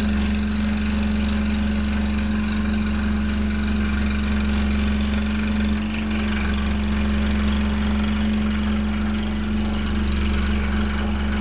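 Excalibur scroll saw running steadily: a constant motor hum that holds one even pitch throughout.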